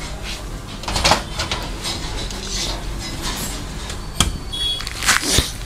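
Clicks and knocks from a DLP projector's optical engine (lens, focus unit and colour-wheel housing) being handled and set down on a wooden workbench, over a steady low hum. There is a knock about a second in, a sharp click a little after four seconds, and a couple more knocks near the end.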